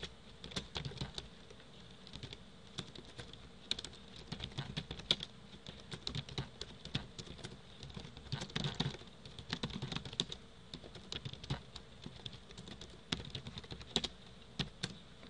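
Computer keyboard typing: irregular runs of keystroke clicks, with a faint steady hum underneath.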